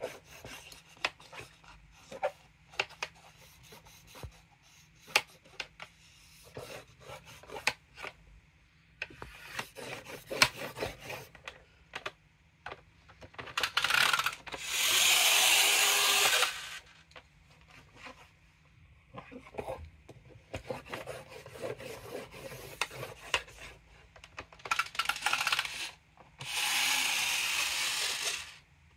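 Plastic stylus of a child's magnetic drawing board tapping and scratching across the screen in short strokes, with two longer rasping scrapes of about two seconds, one about halfway and one near the end.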